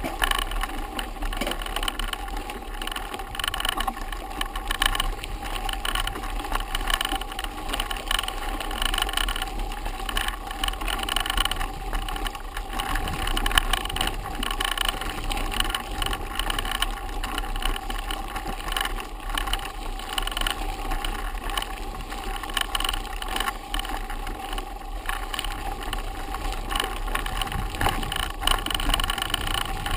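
Mountain bike rolling over a bumpy grass-and-dirt forest track: continuous rattling of the bike and crunching tyre noise, close to the microphone.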